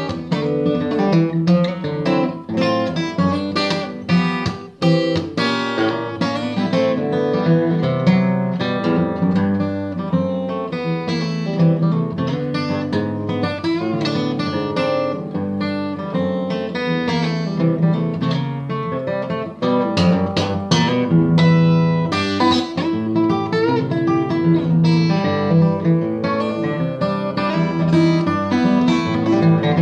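Martin D-1 steel-string acoustic guitar played fingerstyle: steady bass notes under a run of picked melody notes, in a swinging blues style.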